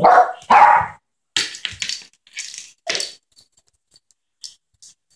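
Yorkshire terrier giving two short barks about half a second apart, followed by a few seconds of light clicking and rattling.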